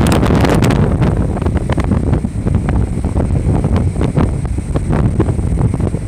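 Strong wind buffeting the microphone over the rush of waves breaking on a sandy beach, loudest in the first second.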